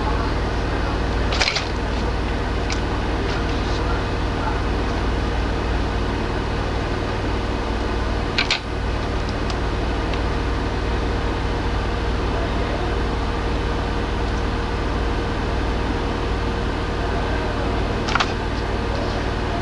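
Steady machine-like hum and hiss, broken by three brief sharp clicks or knocks: about a second and a half in, around eight and a half seconds in, and near the end.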